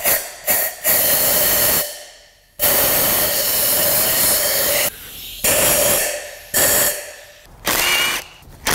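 Compressed-air blow gun blasting air in bursts, a few short puffs and then longer blasts of one to two seconds, clearing water out of the spark plug wells so it does not get into the engine. Near the end a cordless ratchet whirs briefly.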